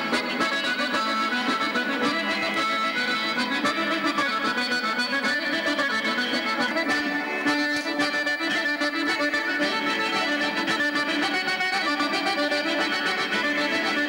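Accordion playing a traditional Sardinian dance tune in a steady pulsing rhythm, for dancers linked arm in arm in a circle dance.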